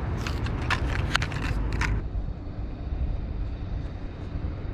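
Short sharp clicks and rustles of small parts being handled for about two seconds, then a steady low rumble.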